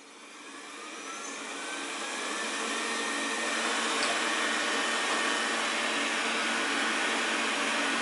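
Xiaomi Mi Robot Vacuum's suction fan spinning up in turbo mode. It rises in pitch and loudness over the first three seconds or so, then holds as a steady, much louder blowing whine.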